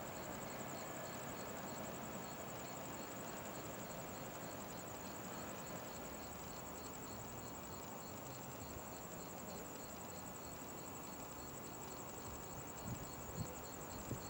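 Insects chirping steadily in a fast, even pulse over a faint background hiss, with a few soft knocks near the end.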